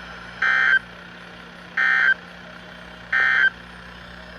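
Emergency Alert System SAME data bursts: three short, identical two-tone warbling squawks a little over a second apart, the end-of-message code that closes a broadcast warning. A steady low hum runs underneath.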